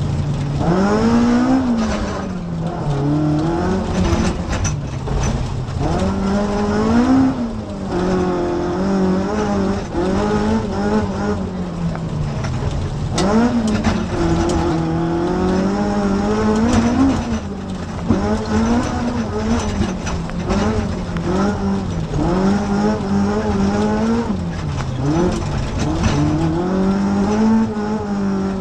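Classic rally car's engine heard from inside the cabin, revving up and dropping back again and again as the car is driven hard through a dirt stage, with knocks and rattles from the rough surface.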